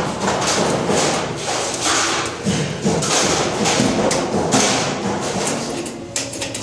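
Repeated thuds and knocks from hand work with a tool on a ceiling-hung sheet-metal box and its hoses, over music playing in the background.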